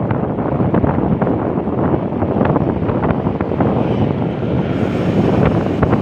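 Wind buffeting the microphone of a phone on a moving bicycle: a loud, gusty rushing noise.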